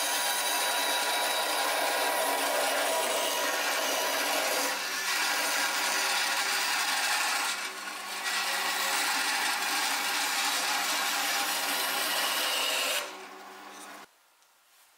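Electric power tool working wood with a steady motor hum under a rasping cut, easing briefly twice. About 13 s in the cutting noise drops away while the motor keeps running, and a second later it stops abruptly.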